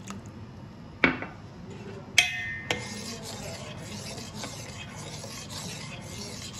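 Metal spoon stirring vanilla custard mix into milk in a metal pan, scraping against the pan in repeated strokes about twice a second. Before the stirring settles in, there are a few sharp clinks of metal on metal, one of them ringing briefly.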